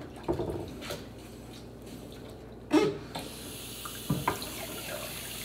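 Kitchen tap turned on about three seconds in, water running into the sink while a wooden cutting board is rinsed. A few knocks of the board come before and during the flow, the loudest just before the water starts.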